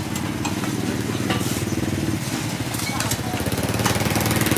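A small engine running, growing louder toward the end, with scattered sharp clicks and knocks over it.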